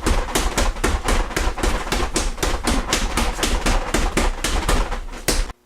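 Rapid, evenly spaced hard hits, about four or five a second, over a continuous low rumble. They cut off suddenly near the end.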